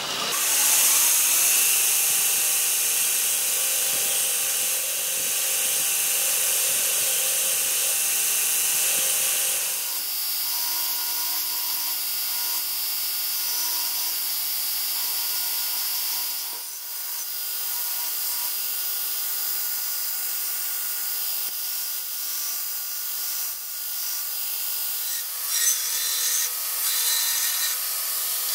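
Ameribrade belt grinder running while a forged O-1 tool steel cleaver blade is ground against its abrasive belt: a steady high grinding hiss over the motor's hum. It turns lighter about ten seconds in, then comes in short uneven passes near the end.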